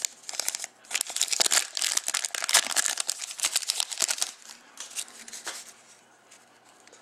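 Foil trading-card pack wrapper being torn open and crinkled by hand: dense crackling for about four seconds, dying away about five seconds in.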